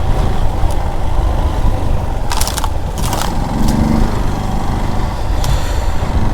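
Hero Xpulse 200's single-cylinder engine running at low trail speed, under a heavy rumble of wind on the microphone. Several sharp knocks come in the middle, and the engine note briefly comes through more clearly just after.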